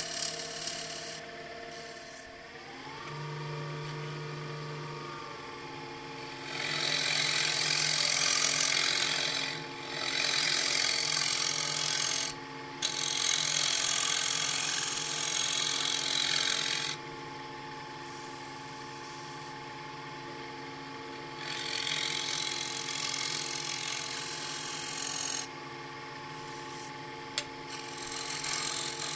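Wood lathe motor running with a steady whine that rises in pitch about two seconds in, while a scraper cuts a spinning wooden platter in several passes of a few seconds each, a loud scraping of wood with shavings flying, broken by quieter gaps.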